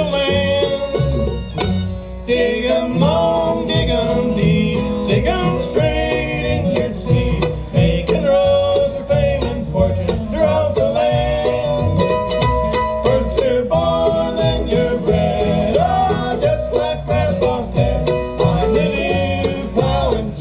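Live bluegrass band playing an instrumental break: banjo picking with guitar and fiddle over a steady beat.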